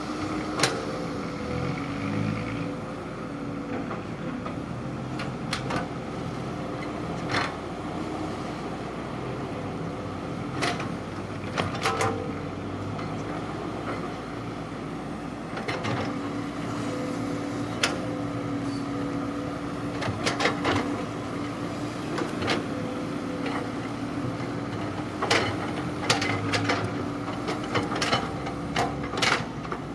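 An engine running steadily with a constant drone, with sharp clicks and knocks at irregular intervals throughout, clustering near the end.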